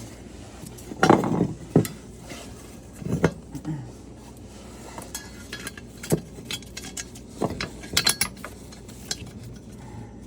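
Irregular metal-on-metal clinks and clanks, with a few louder strikes about a second in, around three seconds and again near eight seconds.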